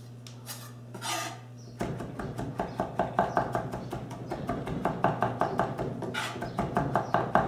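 Chef's knife mincing garlic on a wooden cutting board: a fast, even run of blade taps starting about two seconds in.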